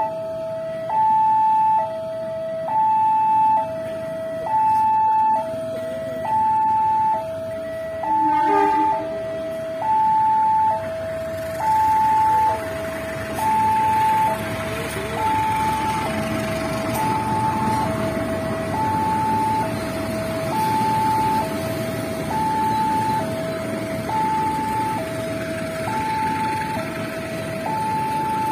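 Railway level-crossing alarm sounding its two-tone electronic warning, switching between a higher and a lower tone about once a second to signal a train approaching. About halfway through, the noise of a passenger train passing over the crossing rises beneath it.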